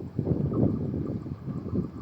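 Low rumble of a TCDD diesel railcar set, with wind buffeting the microphone in uneven gusts. A faint steady whine starts about half a second in.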